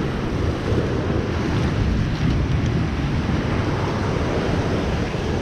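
Ocean surf washing over a rocky lava shoreline, a steady rush of water with wind buffeting the microphone.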